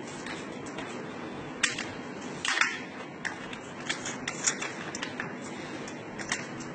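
Irregular sharp metallic clicks and snips over a low steady hum, from a drill-mounted double-head sheet-metal nibbler and the sheet it works. The loudest snaps come about a second and a half and two and a half seconds in.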